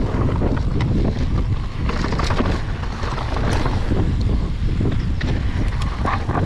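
Wind buffeting the microphone of an action camera on a mountain bike descending a dirt and stone trail, with tyre noise and scattered clicks and rattles from the bike running over rough ground.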